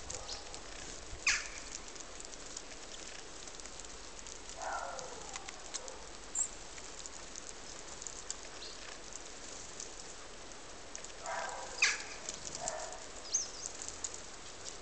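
Birds calling: a few short, harsh calls, one sliding down in pitch, and a couple of brief high chirps, over a steady hiss.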